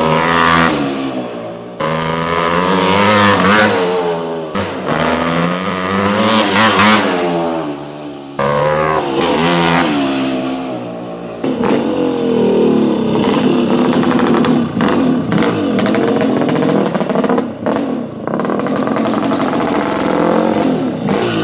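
Montesa VR360 dirt bike's 414cc big-bore single-cylinder two-stroke engine revving and accelerating as it rides past. Its pitch climbs and drops with the throttle again and again, and the sound jumps abruptly a few times.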